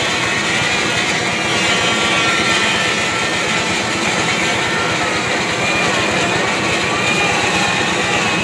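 Simple homemade wood lathe running as it turns a 6-metre coconut-wood post: a loud, steady machine noise with a high whine that wavers in pitch.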